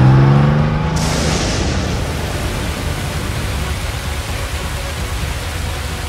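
A low tone rises in pitch and fades in the first second. Then a steady, even hiss like heavy rain sets in and carries on.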